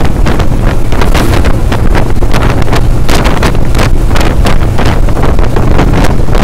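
Wind buffeting the microphone inside a fast-moving vehicle: a loud, rough rush with irregular gusts over a steady low road and engine rumble.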